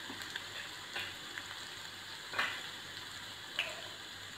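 Hot oil sizzling in a kadai of tempering (mustard seeds, cumin, dried red chillies, curry leaves, crushed garlic and turmeric), frying on the pan's remaining heat with the stove switched off. There is a steady hiss, with a few sharp pops.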